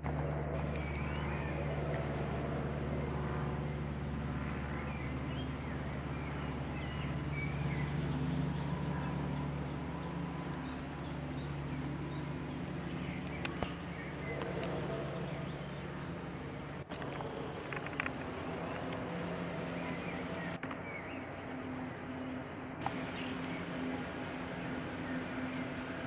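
Cessna light aircraft's piston engine and propeller droning overhead, a steady low hum that slowly fades after about ten seconds. Birds chirp now and then in the background.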